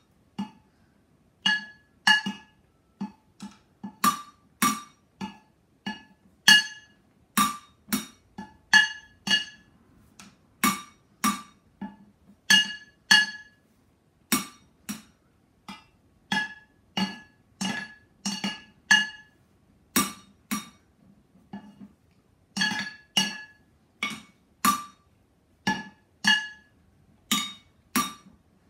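Wooden drumsticks striking two upturned black cooking pots played as drums, in a slow beat of about one or two hits a second. Each hit is a sharp knock with a short metallic ring.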